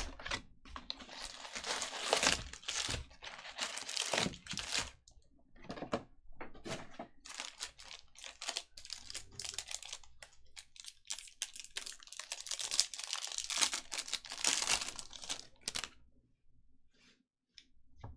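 Bowman baseball card pack wrappers being torn open and crinkled in a long run of ripping and rustling that stops about two seconds before the end.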